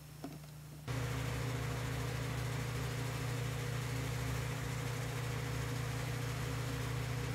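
A machine running in the cellar, a steady hum with an even hiss, which starts abruptly about a second in and holds steady.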